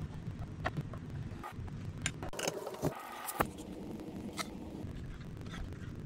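Light clicks and scrapes of a steel screwdriver working against an antique wooden cigar box, with a few knocks of the box and its parts being handled.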